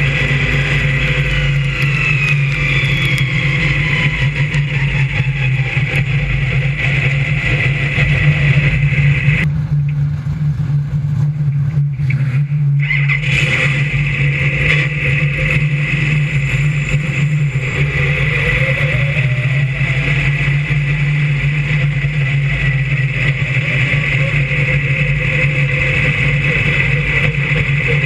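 Brisca F1 stock car's V8 engine running at steady revs close to an on-board microphone, with a constant low drone. For a few seconds near the middle the higher hiss and rattle drop away, leaving mostly the engine's low note.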